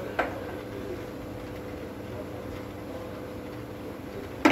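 Steady workshop hum with two short sharp knocks, a small one just after the start and a louder one at the very end.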